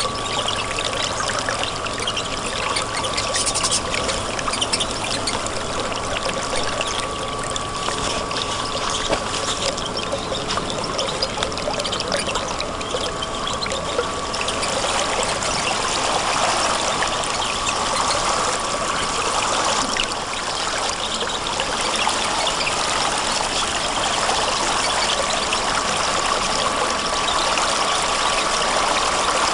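Stream water flowing and trickling steadily, a little louder in the second half.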